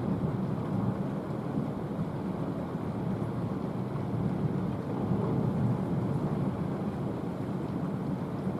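Thunder rumbling low and continuously, swelling a little now and then, with no sharp crack.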